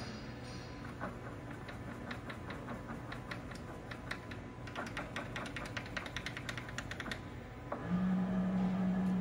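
Rapid, irregular clicking as the carriage handwheel of a Trak 1840CSS CNC lathe is cranked. About eight seconds in, a motor on the lathe starts up with a steady low hum that is louder than the clicking.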